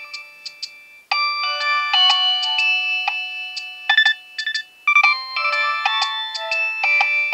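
Nokia 6820a mobile phone playing a polyphonic ringtone melody, several electronic notes at once, tinny with no low notes. It breaks off briefly about a second in and the melody starts up again.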